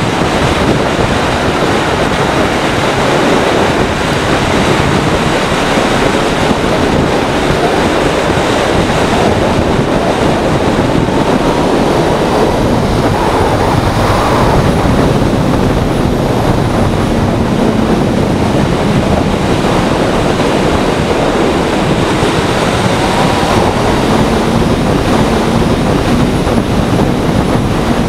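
Loud, steady wind rushing over the microphone as a Honda CBR600F3 sport bike is ridden, with the bike's inline-four engine faintly audible beneath it.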